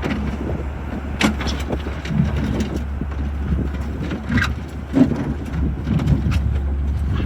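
Skid steer engine running with a steady low drone, with a few sharp clanks and knocks over it. The loudest knock comes about five seconds in.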